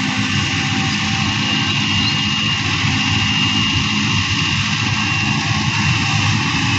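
Heavy diesel machinery engine running steadily, with a thin high whine held over the low rumble.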